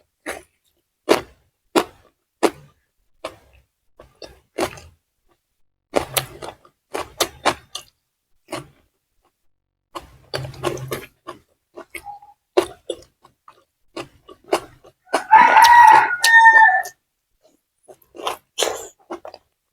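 Close-up eating sounds: crisp bites and wet chewing, in a run of short clicks and crunches. A rooster crows once in the background about fifteen seconds in, a long call that falls away at the end and is the loudest thing heard.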